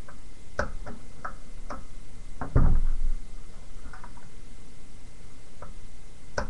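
Irregular clicks and knocks of hand tools and parts being handled while a Husqvarna 6730 sewing machine is worked on with a screwdriver. One louder knock comes about two and a half seconds in.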